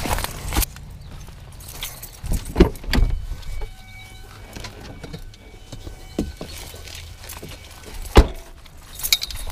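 An SUV's rear hatch opened and a landing net pulled out of the cargo area, heard as several knocks and clatters over a steady low rumble; the loudest knock comes about 8 seconds in.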